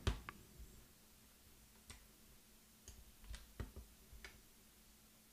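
Computer mouse clicking: several faint, separate clicks at irregular intervals.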